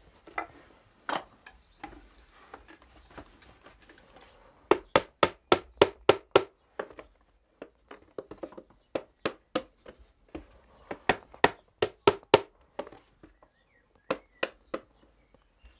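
Small hammer tapping nails to fix the wooden sideboards into a garden trug: quick sharp taps, about four a second, in several short runs, the loudest run about five seconds in.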